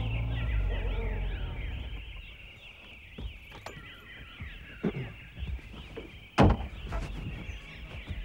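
Premier Padmini car's engine running low as it pulls up, fading out within the first two seconds, then a few sharp knocks of its door, the loudest a door slam about six and a half seconds in. Birds chirp throughout.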